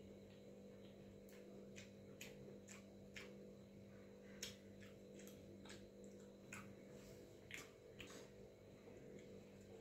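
Faint eating sounds from someone eating rice soaked in water by hand: soft, irregular clicks and smacks, about one or two a second, from chewing and from fingers mixing the wet rice in a steel plate, over a steady low hum.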